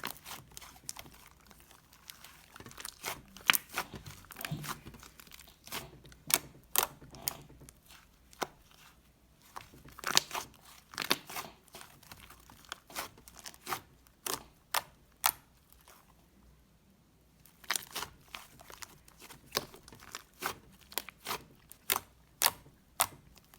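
Light green slime being handled by hand: irregular sharp clicks and pops as it is pressed, stretched and folded, with a short pause about two-thirds of the way through.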